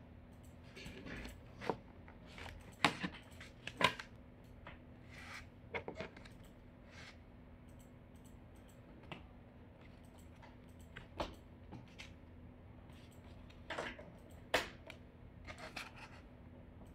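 Scattered clicks, taps and light rustling of USB cables being handled and plugged into the back ports of a multi-port SMS modem box, over a faint steady hum.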